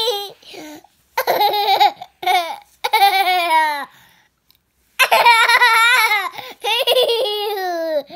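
Toddler girl laughing with a pacifier in her mouth, in repeated high-pitched bouts with a short pause about four seconds in.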